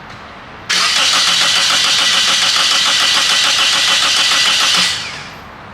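A 2003 Toyota Corolla's 1.8 four-cylinder engine cranking on the starter for about four seconds with an even, rhythmic cadence but never firing. It does not catch because there is no coil or injector signal. The cranking starts suddenly and dies away at the end.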